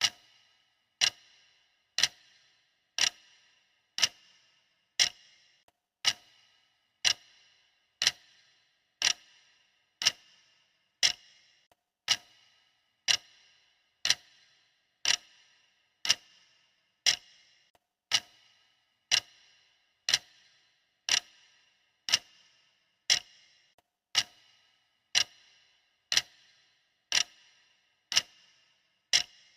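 Clock ticking sound effect: a sharp, even tick once a second, steady throughout.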